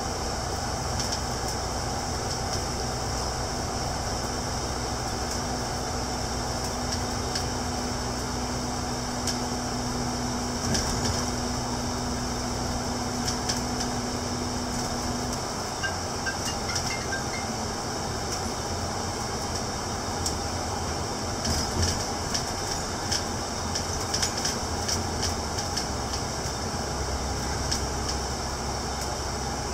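Cabin noise of a double-decker bus cruising on an expressway: a steady mix of engine drone and road noise with light rattles, more frequent in the second half. A steady low hum runs through the first half and then stops.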